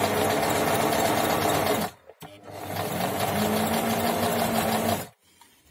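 Brother household sewing machine running a zigzag stitch through folded fabric in two bursts of fast, even stitching: it stops briefly about two seconds in, picks up speed again, and stops about five seconds in. It is sewing without skipped stitches after the repair.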